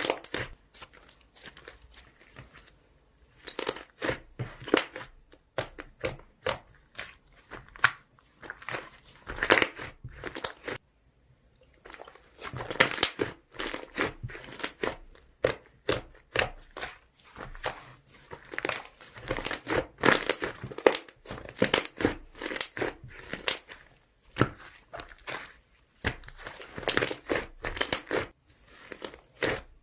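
Slime being squeezed and stretched by hand, giving runs of quick clicks and pops with a short pause about eleven seconds in.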